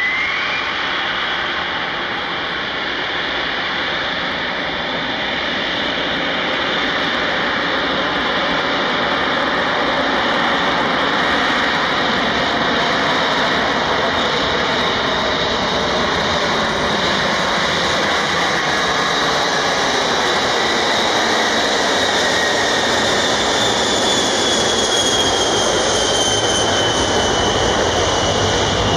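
Boeing B-52H Stratofortress's eight Pratt & Whitney TF33 turbofans at takeoff power as the bomber rolls down the runway. It is a loud, steady jet noise with a whine on top, and the whine falls in pitch near the end as the aircraft passes.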